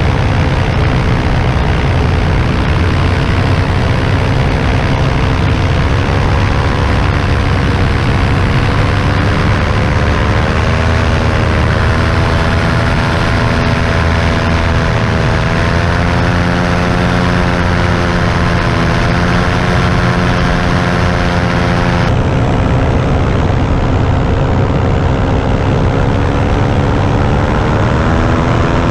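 Vittorazi Moster 185 single-cylinder two-stroke paramotor engine and propeller running steadily, its pitch drifting slowly up and down with the throttle.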